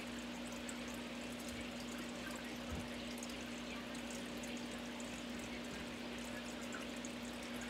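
Steady hiss with a constant low hum, and faint rustling now and then.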